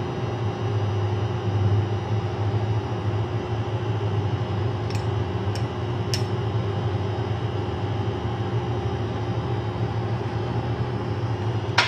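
Steady hum of a fan or similar motor, with a few faint clicks about halfway through, like a spoon tapping a small glass.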